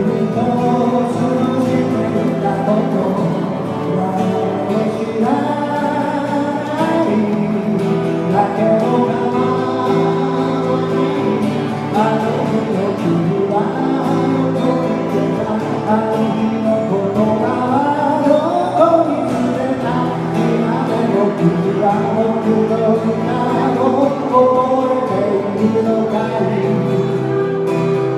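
Music: a song with singing and guitar accompaniment.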